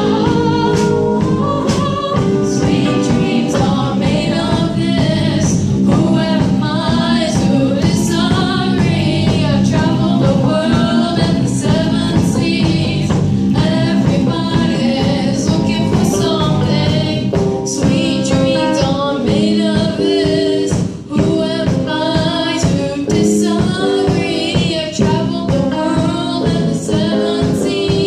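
A song: singing over a full, steady musical accompaniment.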